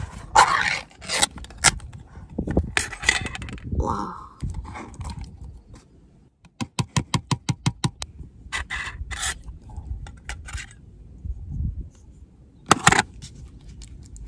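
Metal scraping and clinking of a utensil working wet dog food out of a small tin can, then a quick run of about a dozen taps as the food is knocked into the bowl. More clicks follow, with a sharper knock near the end.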